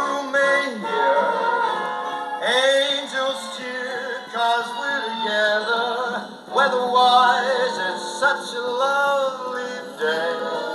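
A vinyl record of a male crooner singing a swing-era pop song, playing on a turntable through a small speaker. The held notes waver with vibrato, and the sound has no deep bass.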